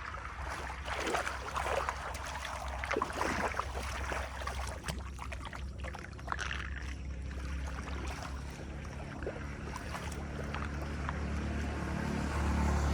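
Flood water draining, a steady low rushing rumble with splashes and small knocks in the first half. The rumble grows louder near the end.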